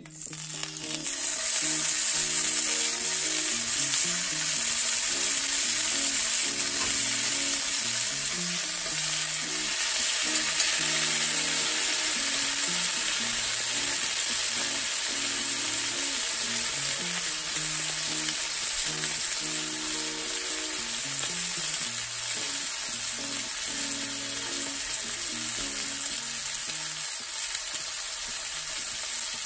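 Two strip loin steaks searing in a ripping-hot cast iron skillet with avocado oil: a loud, steady sizzle that starts the moment the meat goes into the pan. This is the final pan sear of a reverse-seared steak.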